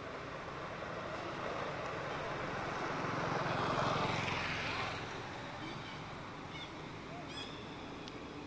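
A passing vehicle: its noise swells to a peak about four seconds in, then fades. A few short bird chirps sound near the end.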